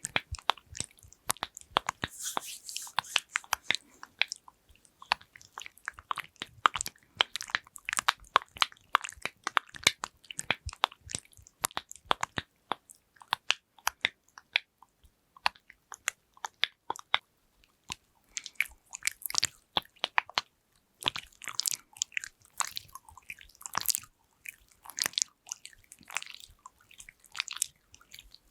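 Quick, irregular clicking and tapping on plastic lids and containers, with short scratchy rubbing in places and a couple of brief pauses midway.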